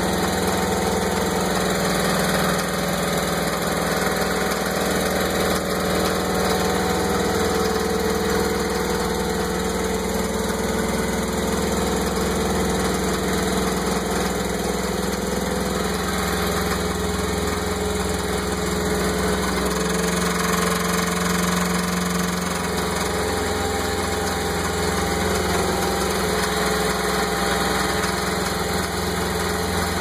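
Mercruiser 5.7-litre V8 sterndrive engine running steadily with a knock, which the owner cannot trace: it persists after new spark plugs, a new distributor cap and a timing adjustment.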